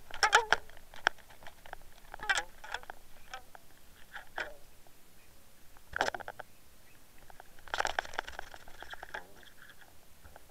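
Scattered knocks, bumps and rustles of a landing net and a striped bass being handled on a boat deck, in irregular clusters with the loudest near the start, about six seconds in, and a longer rustly patch around eight seconds.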